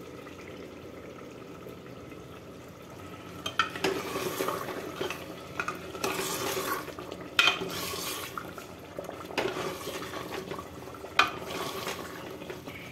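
A metal ladle stirring thick keema in an aluminium pressure cooker pot, scraping and clinking against the metal. The stirring starts a few seconds in, with several sharp knocks of the ladle against the pot.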